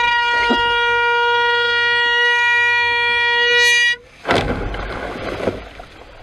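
Handheld air horn blasting one long steady note, warning off a boat bearing down on the kayak. It cuts off about four seconds in and a loud crash of splashing water follows as the boat's hull and spray hit the kayak, then dies away.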